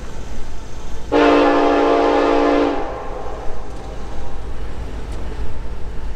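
Union Pacific EMD SD70ACE locomotive's air horn sounding one long chord-like blast of about a second and a half, heard over a steady low rumble, as the train approaches a grade crossing.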